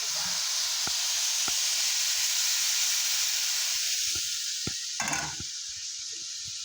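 Strips of chicken of the woods mushroom frying in a pan: a steady sizzle with a few light clicks and pops. The sizzle thins a little about four seconds in, with a brief louder rustle just after five seconds.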